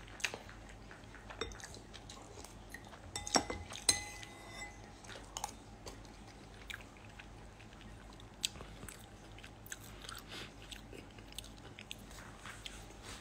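Faint eating and handling noise: scattered clicks and crinkles of a food bag being handled, with chewing. The busiest clicks come about three to four seconds in.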